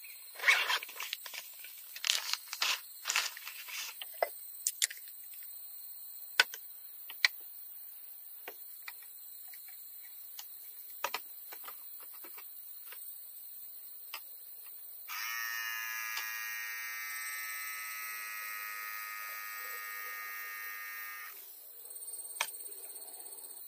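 Rustling and knocking as a soft bag and gear are handled, then scattered small clicks. About fifteen seconds in, an electric beer tower server buzzes steadily for about six seconds as it dispenses beer, then cuts off suddenly.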